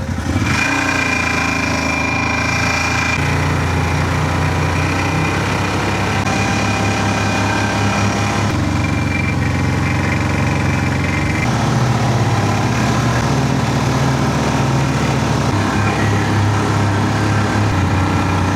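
A riding vehicle's engine running steadily while under way, its pitch shifting a little with speed. A thin high whine sits over it until about halfway through.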